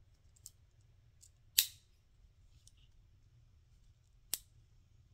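Sharp snapping clicks of a Victorinox Swiss Champ's folding tools being closed and opened against their springs: a loud snap about a second and a half in, another near the end, with a few soft clicks between.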